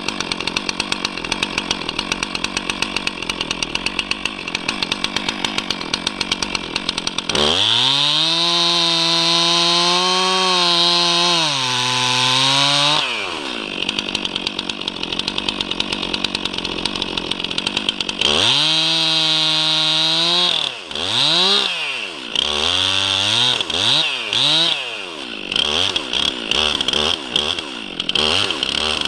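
Stihl MS 362 two-stroke chainsaw cutting into a pine trunk. It idles, is opened to full throttle for about five seconds with the pitch sagging under load in the cut, then drops back to idle. It is run up again for a couple of seconds and then revved in several short blips.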